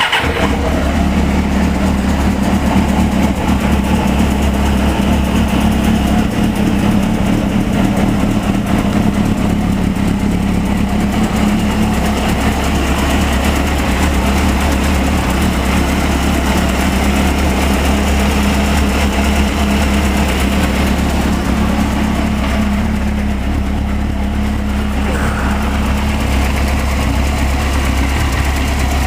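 Suzuki GSX-R 600's inline-four engine idling steadily, just started on fresh oil after an oil change.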